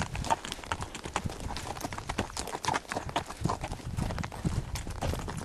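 Horse hooves clip-clopping at a walk, an uneven run of hoof strikes.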